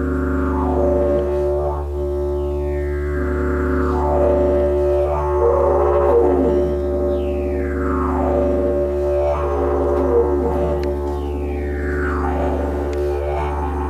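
Didgeridoo playing a continuous low drone, its overtones sweeping down and back up every two to three seconds as the player shapes the sound with mouth and voice.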